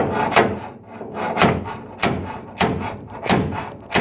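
Repeated hammer blows, about seven of them at uneven half-second to one-second intervals, driving a rusted carriage bolt out of a truck bed.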